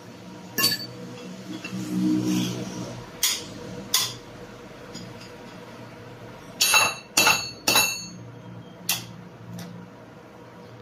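Sharp metal-on-metal strikes from tools on car parts during a CV joint repair. A few come singly, then three close together about two-thirds of the way through, each with a brief high ring.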